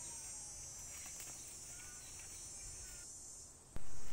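Steady high-pitched buzzing of insects, such as cicadas or crickets, with a few faint chirps. Near the end the buzzing stops and a sudden, much louder, noisy sound takes over.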